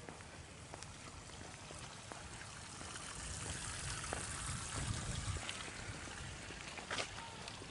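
Water trickling and lapping among shoreline rocks, swelling louder about halfway through, with a few light footsteps.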